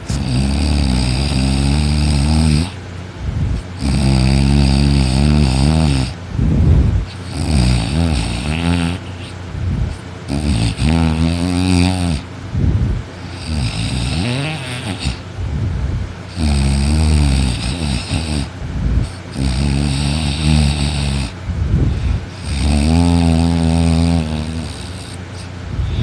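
Loud snoring from a deeply sleeping person: long rattling snores about every three seconds, each lasting around two seconds, with short breaths between.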